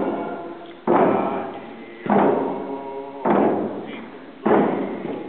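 Hand-held hide frame drums beaten together in a slow, even pulse, about one stroke every 1.2 seconds, four strokes in all, each ringing out before the next.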